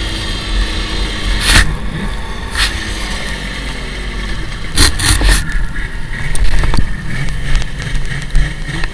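A 2002 Viper snowmobile's engine running, with rumble and rushing noise on a helmet-mounted microphone. Several sharp knocks break in about one and a half, two and a half, and five seconds in.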